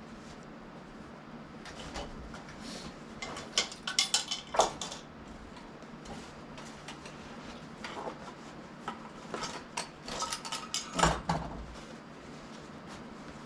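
Dishes and cutlery being handled: two bursts of clinks and knocks, the first about three and a half seconds in, the second around ten seconds in, over a faint steady hum.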